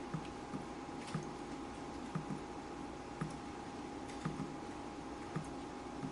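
Water dripping in irregular drops, roughly one to two a second, each a short plink. Underneath is a faint steady hum and hiss.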